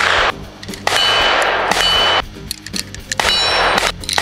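Loose 9mm cartridges clinking and ringing together amid rustling packaging as a hand picks rounds from the ammo box to load a magazine. It comes in three long bursts of rustle with small clicks between.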